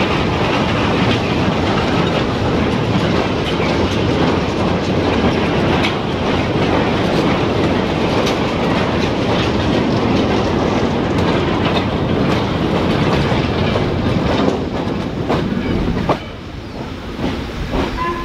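Train running along the line, its wheels clattering over the rail joints. The noise drops away suddenly near the end.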